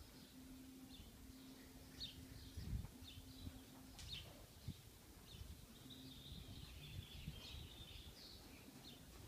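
Faint, scattered chirps of small birds over low background rumble, with a faint low hum coming and going.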